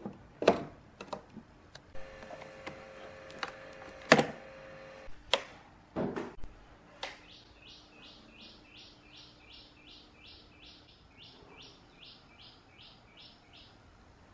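Knocks and clicks as a power connector is plugged into a Beam 275 moving-head stage light and handled, with a brief steady whine among them. Then comes a very regular series of short, high chirps, about three a second, for some six seconds.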